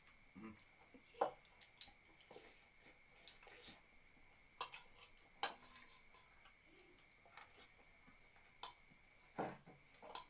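Spoon clicking and scraping against a bowl and plate while eating, a dozen or so irregular light clicks with a faint steady high-pitched tone behind.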